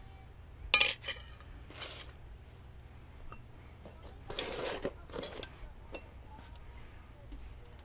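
Metal hand tools and small parts clinking and rattling: a sharp clink about a second in, a longer rattle around the middle, and a few lighter clicks, over a steady low hum.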